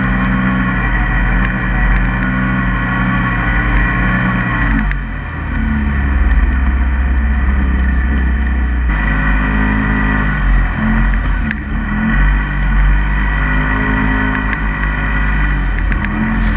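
Polaris RZR side-by-side's engine running hard near 7000 rpm through deep snow. About five seconds in the revs drop off, leaving a low drone, and then the engine picks up again, its pitch rising and falling with the throttle.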